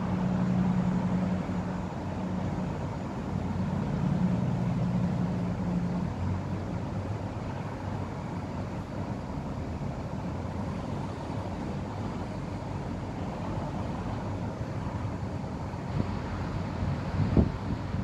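Distant road traffic: a steady wash of noise, with a low hum over the first six seconds and a short thump near the end.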